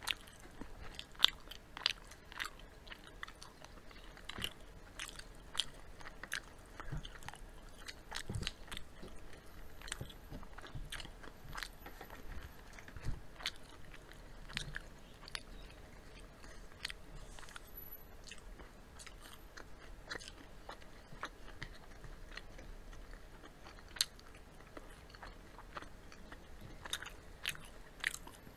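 Eating fried chicken and fries: crisp crunching bites and chewing, heard as many short, irregular crackles.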